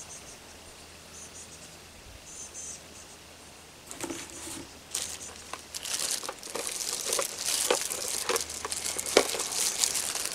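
Plastic packaging crinkling and crackling as it is handled and opened by hand. It starts about four seconds in and grows louder and denser from about six seconds.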